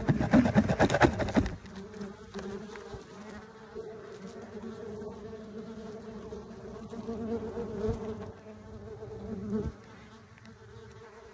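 Bees buzzing in flight, loudest and roughest in the first second and a half, then a steadier hum that swells and fades as they fly about and drops away near the end.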